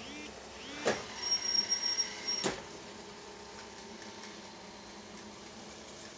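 Xiaomi Mi Robot Vacuum 1C's left drive wheel giving a steady high-pitched whistle for about a second, set between two sharp clicks and preceded by a couple of short chirps. The whistle is the fault sound of the left wheel.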